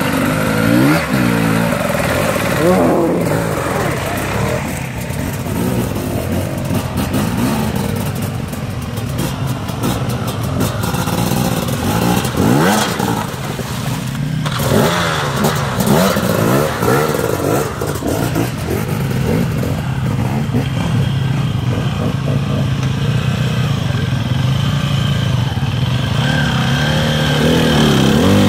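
Enduro dirt bike engines revving hard over and over, the pitch rising and falling as the riders throttle through deep mud and water one after another.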